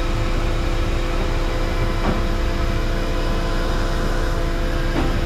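Steady drone of an HGV engine running the bulk tanker's compressor while the trailer is pressurised for a pneumatic discharge into a silo, with two faint clicks about two and five seconds in.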